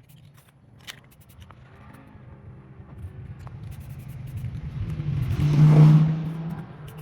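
A motor vehicle passing by: a low engine tone and tyre hiss that grow louder over several seconds, peak about six seconds in, then fade quickly.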